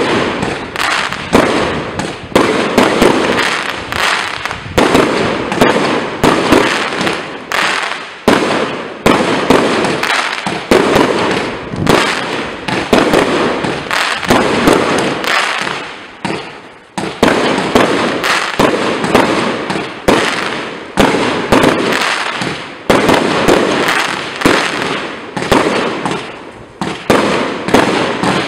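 Hallmark 'Maximum Overdrive' firework barrage firing: a rapid string of shots and aerial bursts, several a second, with a short lull a little past halfway before it picks up again.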